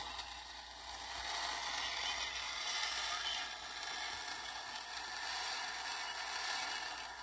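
A home-built two-transistor 80-meter regenerative receiver playing band noise through its speaker: a steady, loud hiss and static with no clear signal.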